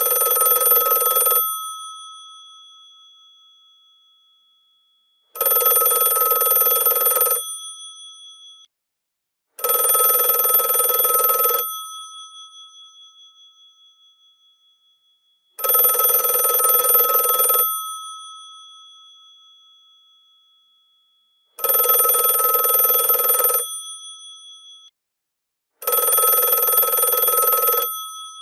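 The electromechanical bells of a GPO 746 rotary telephone ringing in six bursts of about two seconds each, at uneven intervals. Each burst trails off in a fading ring.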